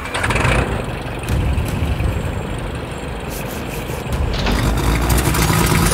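Agricultural spray plane's engine running steadily, then revving up about four seconds in as the throttle is pushed forward.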